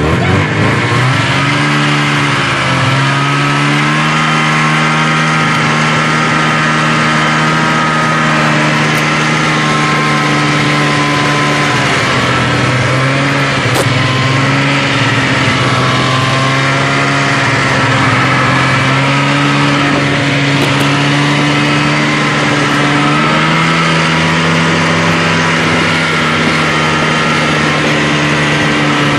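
Snowmobile engine running while towing a sled, heard from on board; over the first few seconds its pitch rises as it speeds up, then it holds a fairly even pitch with small rises and falls.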